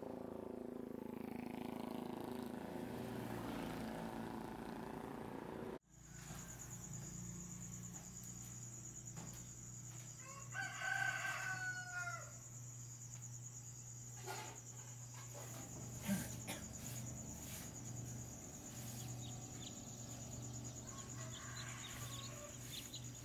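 A rooster crows once, about eleven seconds in, over a steady high-pitched tone and a low hum. Before that, a steady droning sound cuts off abruptly about six seconds in.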